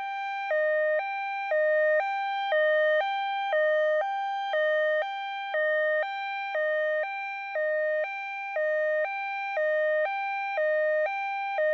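Electronic two-tone hi-lo siren from a toy ambulance, switching between a higher and a lower note about every half second at a steady pace.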